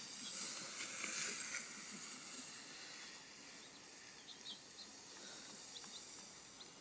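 Outdoor ambience: a steady high hiss, a little louder in the first couple of seconds, with a few faint, short high chirps scattered through the middle.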